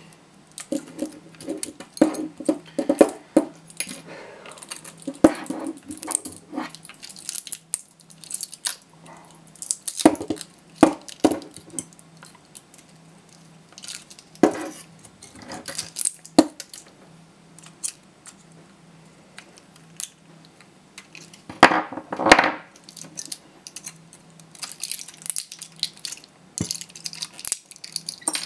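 Pliers gripping and twisting the welded nickel connecting strips off Samsung SDI ICR18650-22E lithium-ion cells, separating the pack into single cells. Irregular metallic clicks, scrapes and snaps, with a dense loud flurry about two-thirds of the way through.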